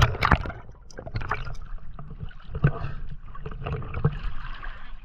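Water splashing and sloshing around a hand-held waterproof camera as a swimmer comes up at the surface. There is a low rumble throughout and irregular sharp knocks about once a second.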